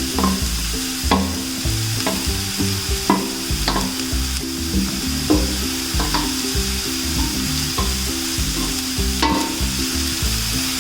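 Shallots, curry leaves and tomato frying in hot coconut oil in a pan, sizzling steadily while a spoon stirs them, with irregular clicks and scrapes of the spoon against the pan about once a second.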